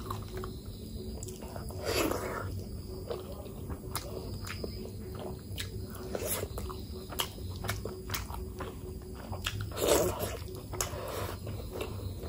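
A person chewing food close to the microphone, with many small wet mouth clicks and smacks and two louder mouth sounds, about two seconds in and about ten seconds in.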